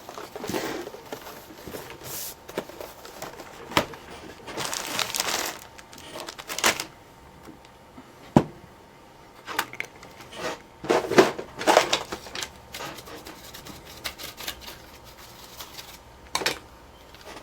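Intermittent handling noise from working on a laptop: scattered plastic clicks and knocks, one sharp click near the middle, with bursts of rustling and scraping.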